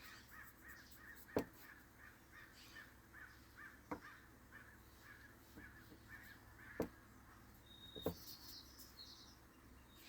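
A crow cawing in a faint, steady run of short calls, about three a second. Four sharp taps sound over it, and a brief high bird chirp comes near the end.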